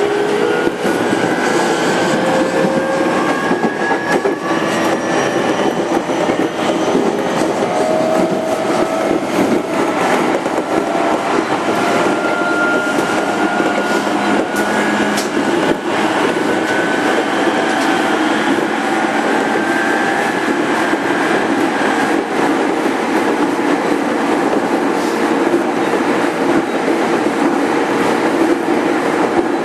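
205 series 5000-subseries electric train running, heard from inside the motor car: a steady rumble and rattle with traction-motor whine that climbs slowly in pitch, and now and then the click of wheels over rail joints.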